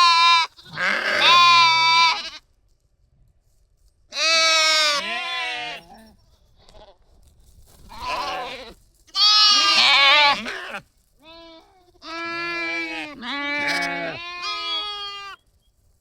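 Shetland sheep bleating: about nine wavering calls, some high-pitched and some deeper, with short pauses between them.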